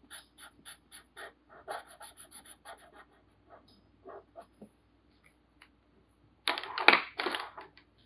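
Felt-tip marker scratching on paper in quick short strokes, about three to four a second at first and then sparser, as an area is coloured in. Near the end comes a louder, brief scuffling noise lasting about a second.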